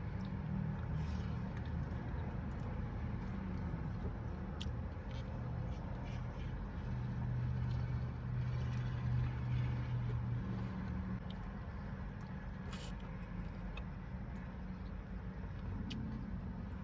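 A person chewing and eating, with scattered faint clicks, over a steady low hum.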